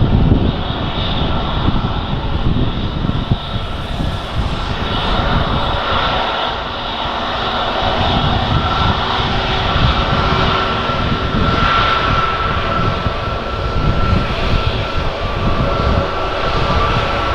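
Airbus A321neo's Pratt & Whitney geared turbofan engines running at low taxi power, a steady jet whine over a rushing engine noise, with gusty wind buffeting the microphone.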